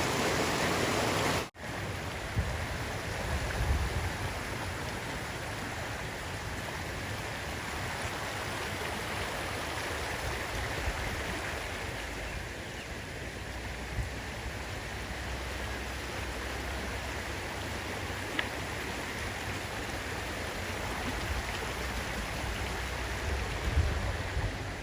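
Rushing water of a mountain stream tumbling down like a small waterfall, a steady hiss that drops out abruptly for a moment about a second and a half in, then carries on slightly quieter.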